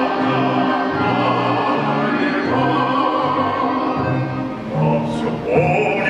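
Orchestra of Russian folk instruments (domras, balalaikas) playing a lyrical song, with a soprano singing over it in an operatic style with vibrato; a bass line moves in even steps beneath.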